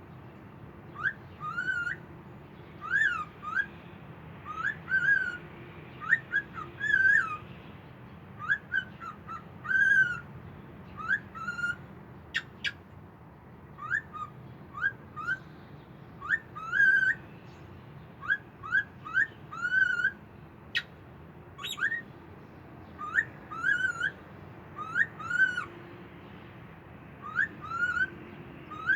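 Cockatiel whistling its song: short whistled phrases that glide up and down, repeated every second or two. A couple of sharp clicks are heard along the way, over a steady low background hum.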